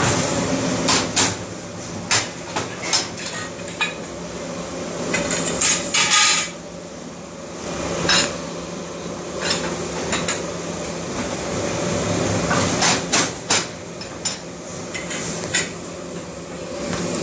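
Irregular metallic clanks and clinks of steel pipes and bending tools being handled at a manual pipe bender, over a steady low hum.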